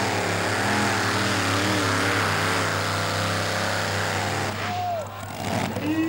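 Modified pulling tractor's engine running flat out under load while dragging the sled, its pitch wavering up and down. About five seconds in the engine note drops away as the full pull ends.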